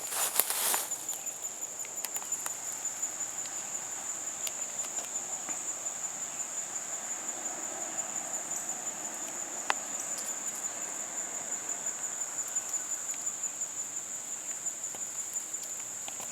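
Insects chirping in a steady high-pitched chorus with a regular pulse, with a single sharp click about ten seconds in.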